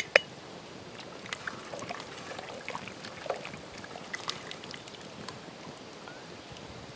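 Campfire crackling, with small irregular pops and ticks over a low steady hiss, after two sharp clicks right at the start.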